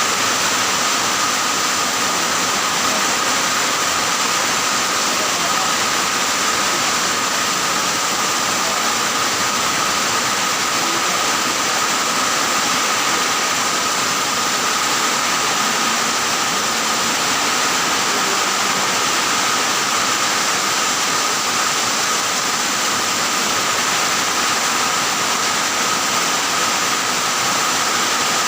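Steady, even rushing noise at an unchanging level, with a faint steady high tone running through it.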